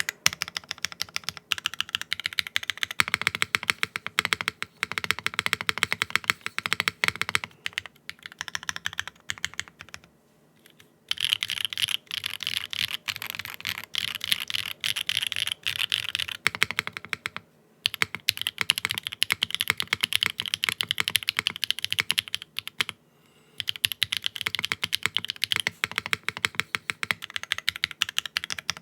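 Typing on a Qwertykeys QK60 R2 mechanical keyboard with Strawberry Wine linear switches, an aluminium plate, no foams and a non-flex-cut PCB: fast, continuous keystrokes in long runs, broken by brief pauses three times.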